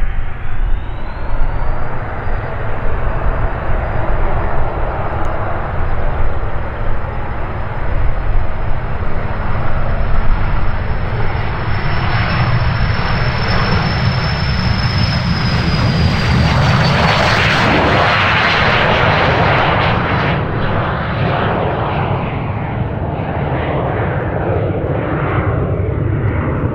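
Cessna Citation CJ3's twin Williams FJ44 turbofans at takeoff power on the takeoff run. A high whine rises in pitch at the start, holds steady, then drops as the jet passes, over a roar that is loudest about two-thirds of the way through.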